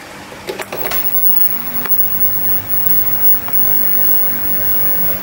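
Static hiss from a CRT television's speaker with no signal, with a few clicks and crackles around the first second as an RCA plug is handled at its AV input; from about two seconds in, a steady low mains hum joins the hiss.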